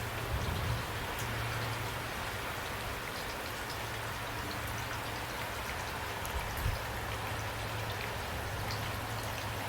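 Steady rain falling, a soft even hiss with scattered drop ticks, over a low steady hum.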